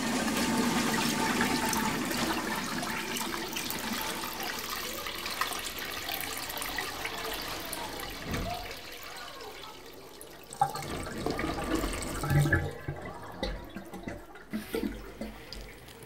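Toilet flushing, the rush of water fading away over about ten seconds, followed by a few scattered clicks and knocks.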